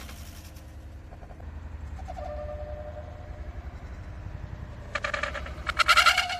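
Trials bike's freewheel hub clicking rapidly in bursts, loudest about six seconds in as the front wheel comes up, over a low steady rumble of street traffic.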